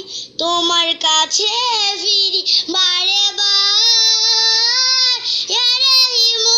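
A young girl singing a Bengali Islamic song unaccompanied, holding long notes with short breaks for breath between phrases.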